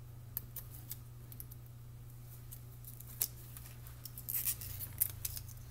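Faint crinkles and ticks of a small piece of aluminum foil tape being peeled and worked between the fingers, with a short rustle about four seconds in, over a steady low hum.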